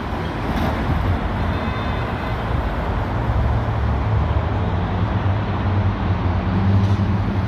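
Steady city street traffic rumble, with a low hum that grows stronger over the last few seconds.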